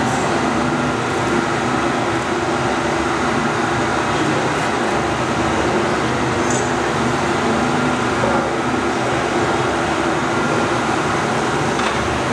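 Steady rushing drone of a Hawk jet flight simulator's engine and airflow sound, with faint steady hums beneath it.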